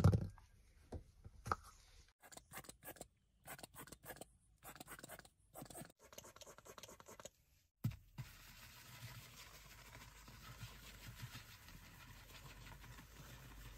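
Foaming pump bottle squirting dollops of leather cleaner foam in short separate bursts, then a soft-bristled detailing brush scrubbing the foam into leather upholstery, a continuous scratchy swishing from about eight seconds in.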